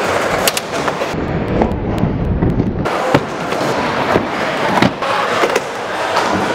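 Stunt scooter riding skatepark ramps: a rolling rumble of the wheels on the ramp surface, broken by repeated sharp clacks and bangs as the wheels and deck hit the ramps and coping. The rumble is heaviest from about one to three seconds in.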